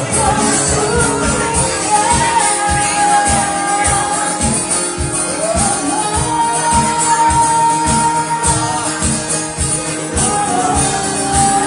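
Live band playing a pop song: long held melody notes over drums keeping a steady beat.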